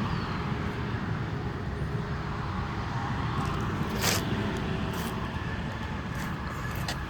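Steady low rumble of road traffic, with a sharp click about four seconds in.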